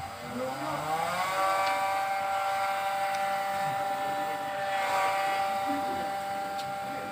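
A motor's whine that rises in pitch over about the first second, then holds at one steady pitch.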